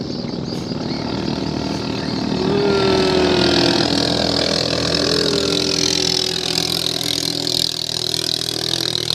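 Racing boat's single-cylinder Honda GX420-based four-stroke engine, enlarged to about 460 cc with a 3 mm longer stroke, running hard at speed as the boat crosses the river. Its steady engine drone is overlaid with a pitch line that drifts downward a few seconds in.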